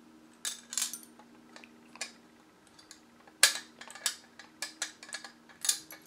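Light metallic clicks and clinks at uneven intervals as the screws of a ceiling fan's metal mounting collar are turned out by hand and the collar is handled, over a faint steady hum.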